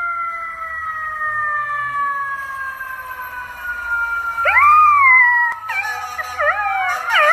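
Golden retriever puppy howling: one rising-then-falling howl about four and a half seconds in, then quick wavering howls. Under it runs a long, slowly falling siren-like tone.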